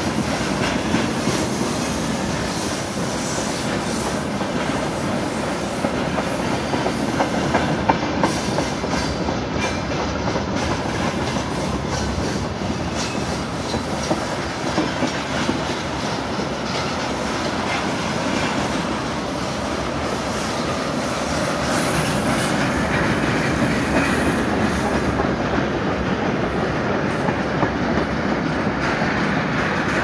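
Freight train of railway tank cars rolling past: a steady rumble of steel wheels on rail, with repeated clicks as the wheelsets cross rail joints.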